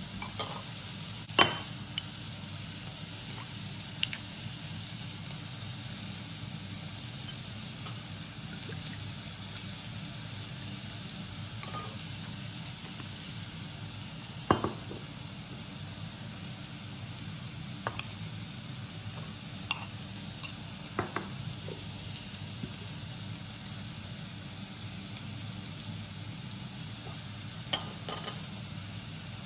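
Scattered sharp clinks and clicks of a metal spoon against a ceramic bowl and of bottles and flip-top caps being handled while a soy sauce, rice vinegar and sesame oil dressing is measured out, over a steady background hiss.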